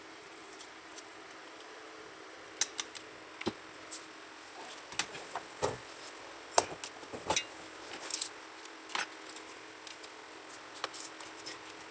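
Scattered clicks and knocks of a Vifa Oslo Bluetooth speaker's plastic housing, driver and circuit board being handled and set down on a work mat, over a faint steady hum.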